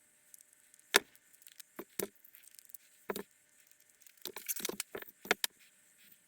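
Small metal parts and bolts clicking and clattering against each other and the bench as a fuel pump is put back together: a sharp click about a second in, a few more knocks, then a short rattle near the end.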